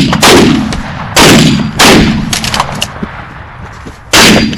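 Shotgun blasts at incoming Canada geese: four loud shots, three in quick succession in the first two seconds and one more near the end, each with a rumbling echo.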